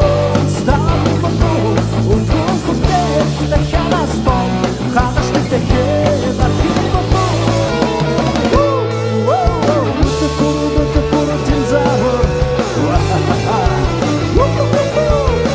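Live rock band playing an instrumental passage: electric guitar lead with bending notes over bass and drums. The bass and drums drop out for a moment about nine seconds in, then come back.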